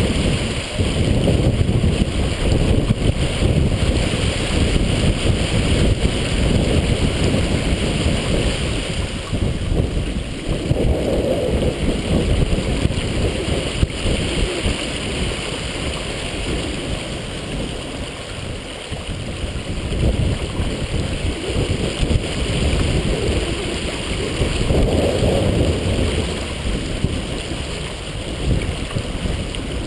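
Strong wind buffeting the microphone in gusts, over the rush and splash of water along the hull of a heeled sailboat sailing hard.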